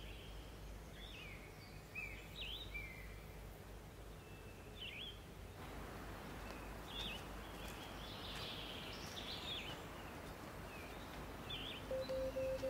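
Wild birds singing and calling in short chirps and sliding notes over a steady hiss of outdoor ambience, which gets a little louder about six seconds in. Near the end a pulsing electronic tone starts.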